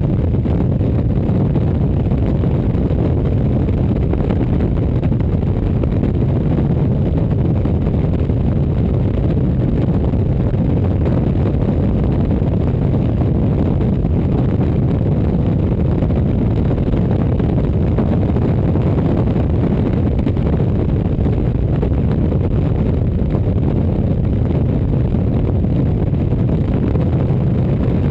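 Motorcycle cruising at steady road speed: a loud, steady low rumble of wind buffeting the bike-mounted camera's microphone over the engine's drone.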